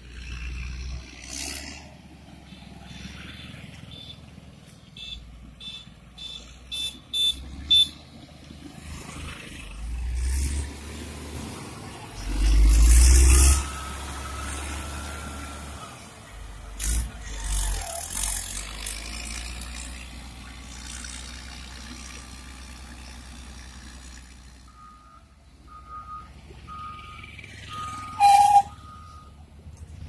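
Caterpillar motor grader's engine running, with wind gusting on the microphone, loudest about halfway through. Near the end a reversing alarm beeps about six times, evenly spaced.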